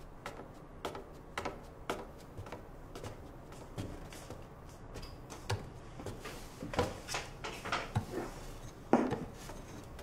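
Quiet, scattered light knocks and clicks, about ten in all, of a chair and tableware being handled at a wooden dining table.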